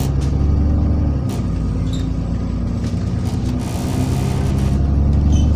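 Interior of an Alexander Dennis Enviro400 double-decker bus on the move: the diesel engine runs with a steady low drone, and irregular loud rattling clatters over it, which the rider puts down to the seats.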